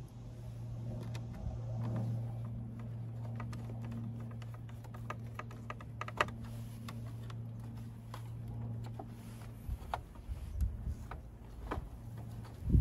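Irregular small clicks and taps of plastic and metal parts being handled and fitted back into an LED TV during reassembly, over a steady low hum, with a louder knock at the end.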